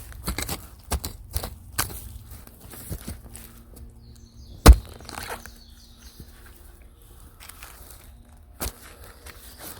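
Footsteps crunching and crackling over dry leaf litter, with one sharp, loud knock about halfway through and a softer one near the end.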